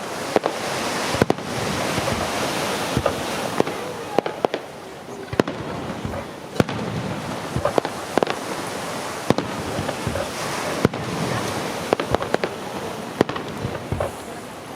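Aerial fireworks display: shells burst with sharp bangs at irregular intervals, about one a second, over a continuous dense rushing noise.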